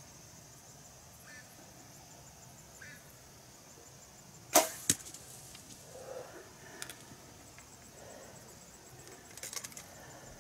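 Compound bow shot: a sharp snap about four and a half seconds in, then a second crack a third of a second later, followed by soft rustling. Insects chirp steadily in the background.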